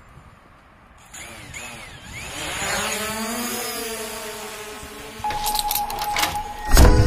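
DJI Mavic quadcopter's motors spinning up and the drone lifting off, a whine of propellers that rises in pitch and grows louder about a second in. Background music starts loudly near the end.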